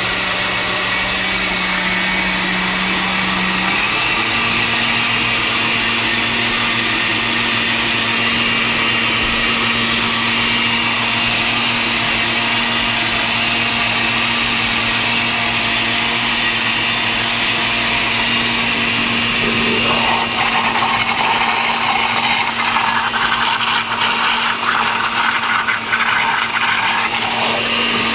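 Electric kitchen blender running steadily at high speed, its motor pitch stepping up about four seconds in; from about two-thirds of the way through the sound turns rougher and uneven.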